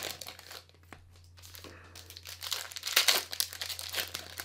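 Foil wrapper of a trading-card pack being torn open and crinkled by hand, with irregular crackles that grow strongest about three seconds in.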